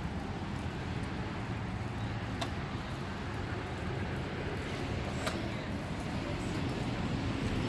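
Steady low engine rumble, like motor traffic, with two faint clicks about two and a half and five seconds in.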